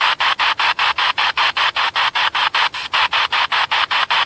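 Ghost-hunting spirit box ('black box') sweeping through radio stations: loud, choppy static that pulses about seven times a second.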